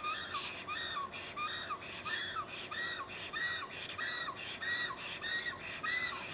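Black storks giving their greeting call at the nest: a long, steady series of whistled calls, about two a second, each bending down in pitch.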